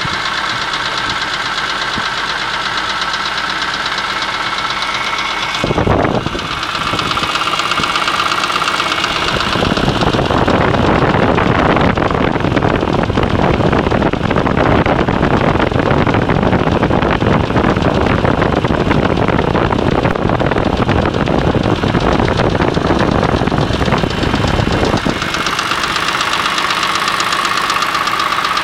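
BMW E46 M3 S54 inline-six engine running with a persistent rattle. There is a single thump about six seconds in. The rattle grows louder and denser for about a quarter of a minute from around ten seconds in, then eases back. The rattle began after the engine was rebuilt on a used block with the original head, VANOS and camshafts; its cause is unknown.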